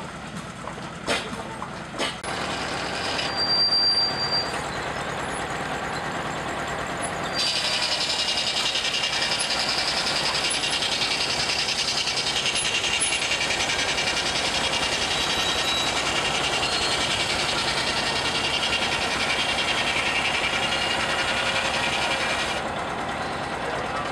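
Portable circular sawmill blade cutting through a log: a loud, steady high hiss that starts about seven seconds in and cuts off a second or two before the end, over a steady mechanical running sound. Two sharp knocks come in the first couple of seconds.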